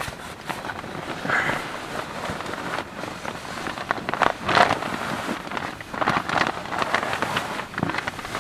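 Rain falling, heard as a dense, irregular patter of drops, with a few louder rustles about a second and a half in and again about four and a half seconds in.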